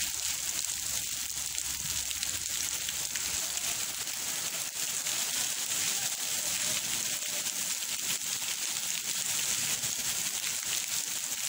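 A heavy downpour falling steadily on paved walkways, trees and hedges, making an even, constant hiss.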